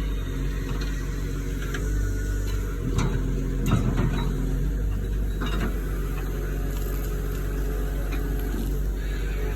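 Cat 315 LC excavator's diesel engine running steadily, with a few sharp knocks about three to five seconds in.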